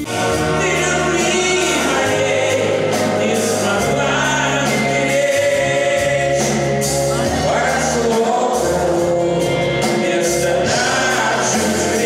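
A Soviet-style vocal-instrumental pop ensemble (drums, keyboards, electric guitar and bass) playing a song live, with a whole concert hall singing along in many voices.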